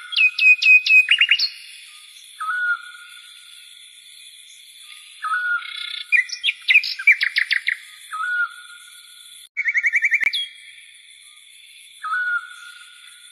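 Songbirds singing: bursts of repeated chirps and quick trills that come and go every few seconds, over a faint steady high tone.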